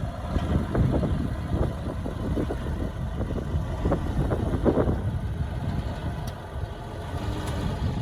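Diesel engine of heavy earthmoving machinery running at a low, steady pace, with scattered short knocks.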